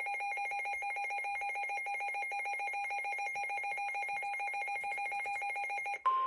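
Electronic trilling ring like a telephone bell: a high tone flipping rapidly between two pitches over a pulsing lower tone. Near the end it cuts off and a steady single-pitch alert tone, the 1050 Hz Weather Radio warning tone, begins.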